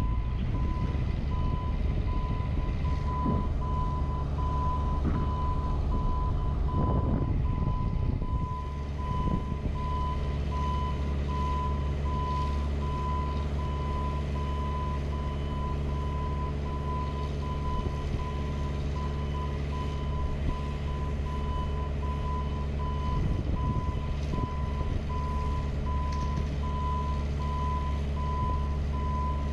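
Warning alarm on a JLG 150HAX boom lift beeping on and off at one steady pitch, over the steady low drone of the lift's engine.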